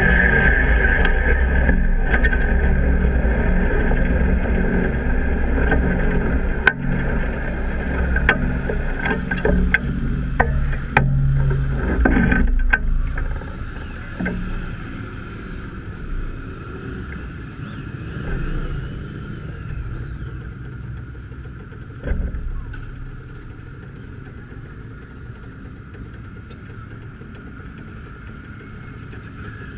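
Suzuki V-Strom 1000's V-twin engine running at low speed, with a few sharp clicks along the way; the engine sound stops about halfway through, leaving a quieter steady background.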